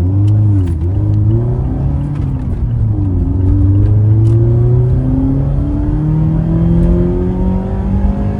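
Mazda ND Miata's four-cylinder engine accelerating with an aftermarket cold air intake, its induction noise plainly heard. The pitch rises, drops back twice in the first three seconds, then climbs in one long steady pull.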